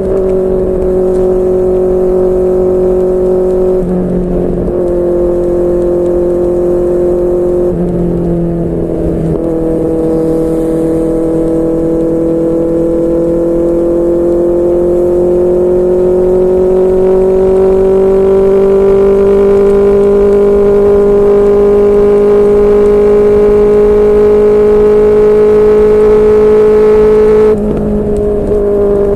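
QJMotor SRK600's inline-four engine through a Yoshimura R11 exhaust, running under way. The note breaks briefly about 4 and 8 seconds in, then climbs slowly in pitch as the bike gathers speed, and drops suddenly near the end.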